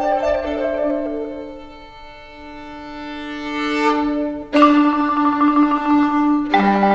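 Live chamber music for violin, clarinet and marimba. A note is held while the others die away to a quiet point about two seconds in. The music then swells and breaks into a sudden loud passage about four and a half seconds in, with a lower note added near the end.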